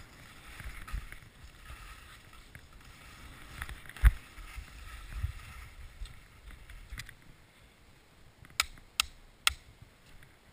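Skis sliding and scraping over packed snow, with a single hard knock about four seconds in. Three sharp clicks come close together near the end.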